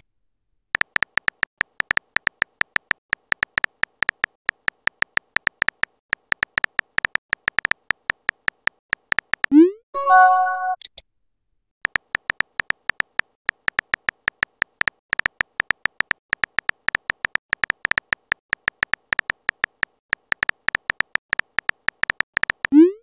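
Phone keyboard typing clicks from a texting-story app, a rapid run of short clicks. About ten seconds in, a short rising pop and a brief chime sound as a message is sent, then the typing clicks resume and end with another rising pop.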